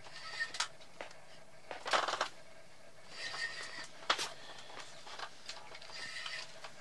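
Fishing reel on an ice rod being cranked in short spells while a large hooked catfish is played, with sharp clicks and a quick run of ticks about two seconds in.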